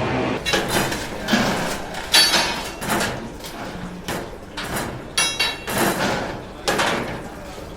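A quick, irregular series of knocks and clanks, some with a short metallic ring, from glassworking tools and glass being handled at a glassblowing workshop.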